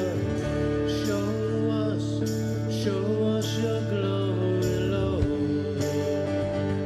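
Live worship band playing a slow song on electric and acoustic guitars, electric bass and drum kit, with a cymbal or snare stroke a little more than once a second.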